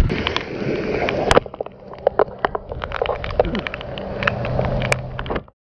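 Rain and wind noise with many sharp clicks and knocks, and a low steady hum from about four seconds in.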